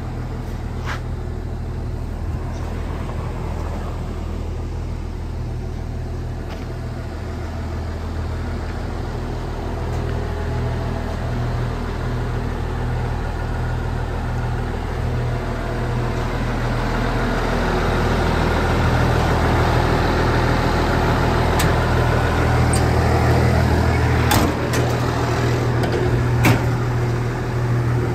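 Hyundai R360LC-7A excavator's six-cylinder diesel engine idling steadily, growing louder in the second half. A few sharp clicks near the end.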